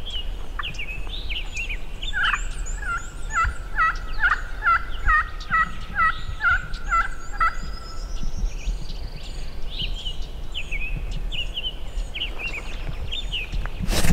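Songbirds singing in spring woods: one bird repeats a slurred whistled note about twice a second for several seconds, while other birds give higher falling whistles and chirps.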